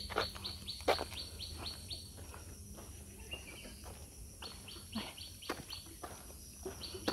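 A songbird calling in quick runs of short, falling chirps, about four a second, one run at the start and another a little past the middle. A few sharp knocks, the loudest about a second in.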